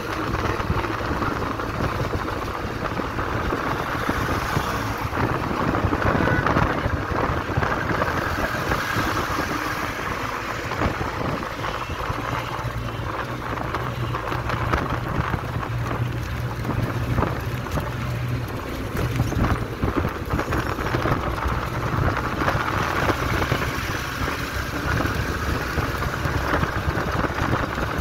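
Auto-rickshaw engine running steadily under way, heard from inside the open passenger compartment, with road and wind noise rushing past.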